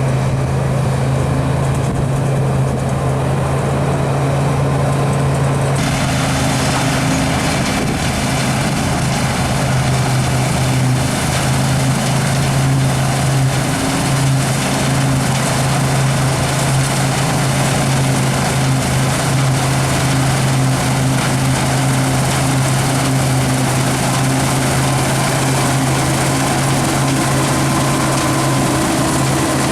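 Large farm machine's diesel engine running at a steady speed, a deep constant hum under a wash of mechanical noise. About six seconds in, a hissing, rattling higher sound comes in abruptly and stays.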